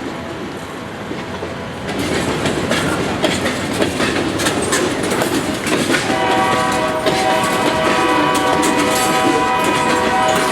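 Freight train rolling past with wheel clicks and rumble, getting louder about two seconds in. From about six seconds in a diesel locomotive's horn sounds a steady chord of several notes, held to the end.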